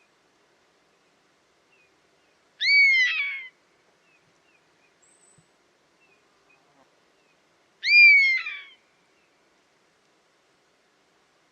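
Common buzzard calling twice, about five seconds apart: each call is a drawn-out, downward-slurring cry, rising sharply and then falling away in under a second.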